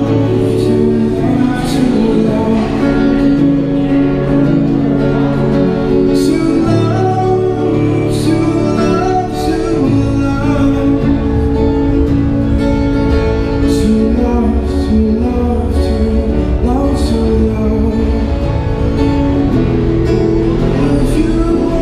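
Acoustic guitar strummed and amplified through a small street amp, with a man singing over it.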